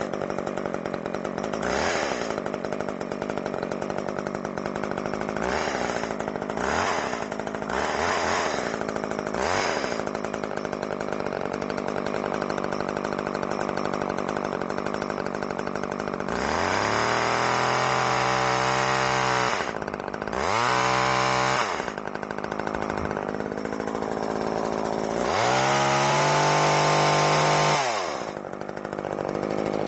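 Poulan Micro XXV two-stroke chainsaw running just after starting, with a few short throttle blips. Later it is revved up three times, the pitch rising and held for a few seconds, then briefly, then for a few seconds again, before dropping back each time.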